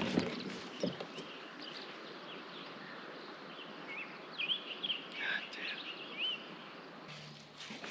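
Songbirds chirping in short swooping notes, thickest around the middle, over a steady outdoor hiss.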